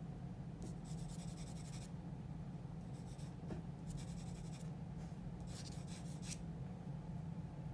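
Graphite pencil stroking on drawing paper in four short spells of quick back-and-forth hatching, the longest about a second, over a steady low hum.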